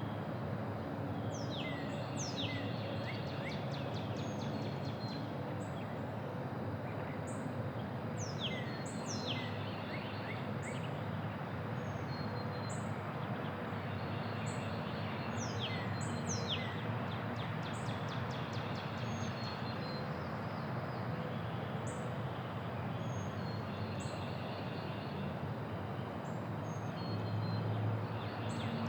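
Neighbourhood outdoor ambience: several songbirds calling, with quick downward-sweeping whistles, rapid trills and short chirps, over a steady low rumble of distant traffic.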